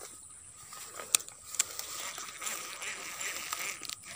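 Faint handling noise from a casting rod and reel while a lure is reeled in, with two sharp clicks a second or so in.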